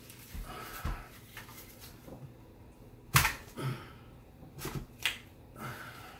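Clicks and knocks of a Hi-Point 995TS carbine being handled and fitted into an MBS-95 bullpup stock, with one sharp loud click about three seconds in.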